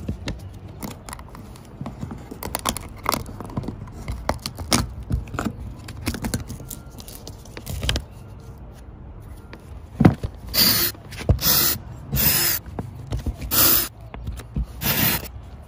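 Clicking and scraping as a plastic RV plumbing vent cap is worked loose and pried off the rubber roof by hand. In the last few seconds a cordless drill-driver runs in short, loud bursts about a second apart.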